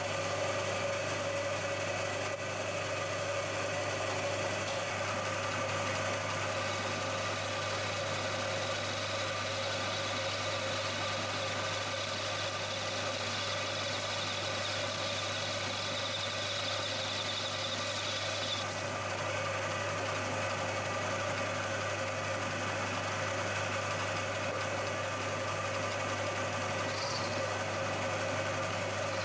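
Milling machine running steadily, its spindle driving a reamer and then a counterbore cutter into aluminium stock, with a steady hum under a mid-pitched whine. A thin high whine over it stops abruptly about 19 seconds in.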